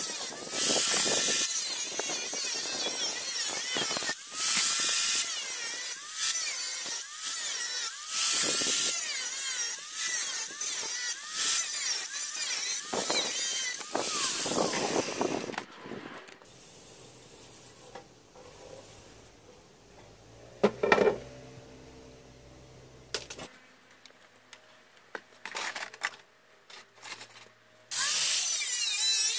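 Electric motor-driven tool switched on in repeated short bursts, each with a whine that rises as it spins up and then falls away, over a rough grinding noise. After that there are several quieter seconds of scattered knocks with one sharp knock, and the machine starts running again near the end.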